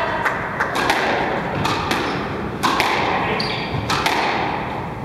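Squash rally: a run of sharp, echoing hits of the ball off the racquets and the front wall, roughly one or two a second. There is a brief high squeak about three and a half seconds in.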